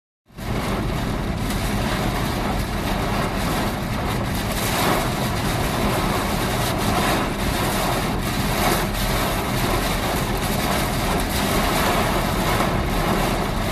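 Steady roar of heavy rain and strong wind, with a vehicle's engine and road noise running underneath.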